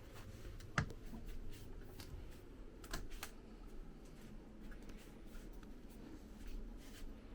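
Scattered light clicks and knocks of hard objects being handled, the sharpest about a second in and another about three seconds in, over a low steady hum.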